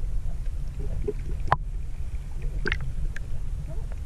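Muffled underwater sound from a camera held below the surface: a dense low rumble of water against the housing, with small bubbling blips and scattered clicks, and one sharp click about one and a half seconds in.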